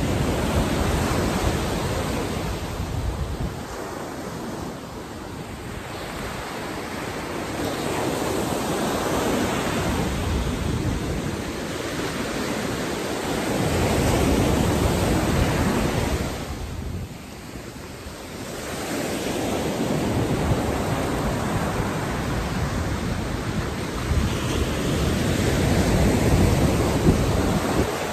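Ocean surf breaking and washing up the sand, the rush swelling and easing every several seconds as each wave comes in.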